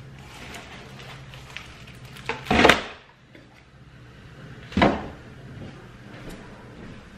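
Items being lifted out of a cardboard box and set down: two loud knocks about two seconds apart, with light handling clatter between.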